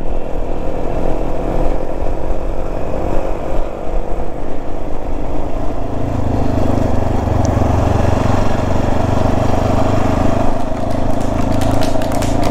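Motorcycle engine running while riding, with wind noise over the microphone; the engine's low note grows stronger about six seconds in.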